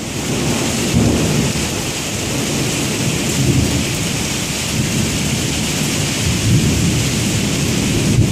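Thunder from lightning about half a mile away, rumbling and swelling in several waves over the steady hiss of heavy rain.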